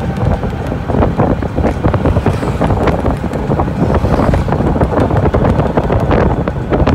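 Road noise of a moving vehicle, heard from on board, with wind buffeting the microphone: a steady rush with frequent small knocks and rattles.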